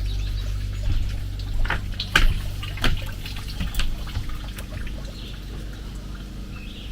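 Water trickling and dripping, with a handful of sharp drips in the first few seconds, over a steady low hum that slowly fades.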